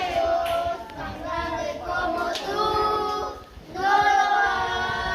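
Children singing a song together in long held notes, with a brief break about three and a half seconds in.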